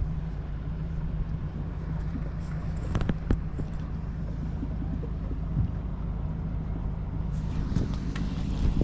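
Steady low rumble and hum on a fishing boat, with a few sharp clicks about three seconds in. Near the end comes a hiss with light ticks as a spinning reel is worked to bring a fish in.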